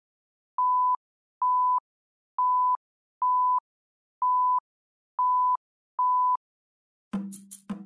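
Film-leader countdown beeps: seven short, identical beeps at one steady pitch, about one a second. Near the end a burst of clicks over a low tone breaks in.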